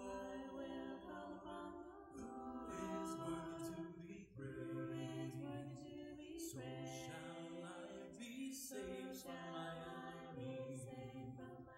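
Choir singing a cappella, voices only with no instruments, in phrases that break off about every two seconds.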